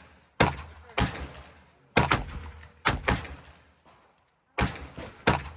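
Six gunshots in quick, uneven succession, each a sharp crack with a short ringing tail.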